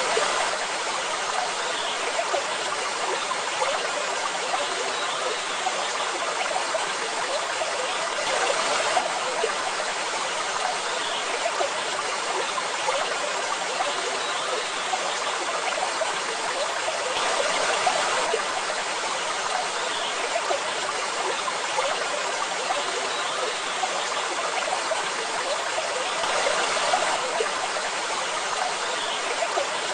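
Waterfall: steady rushing, splashing water that swells a little about every nine seconds.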